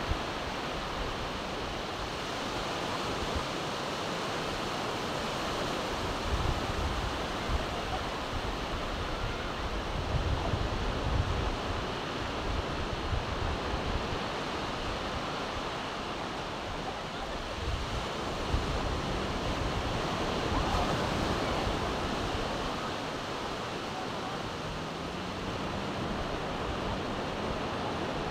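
Surf washing onto a sandy beach as a steady hiss of breaking waves, with gusts of wind buffeting the microphone now and then.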